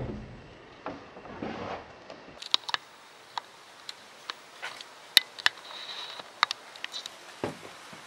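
Light, sharp clicks and taps of a flint core and knapping tools against the wooden stump stand, a dozen or so at irregular intervals. A heavy knock dies away at the very start.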